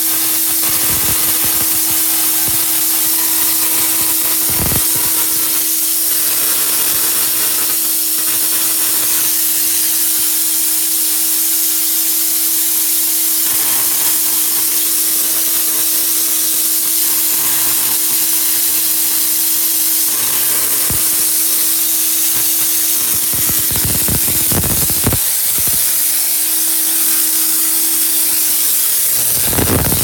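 Tesla coil running with a loud, steady hissing buzz and a steady hum under it. There are a few knocks, a cluster of them near the end.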